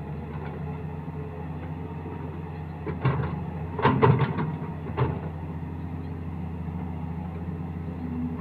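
Doosan 140 wheeled excavator's diesel engine running steadily, with a cluster of heavy knocks and thuds about three to five seconds in as a bucket load of earth is dumped into a tractor trolley.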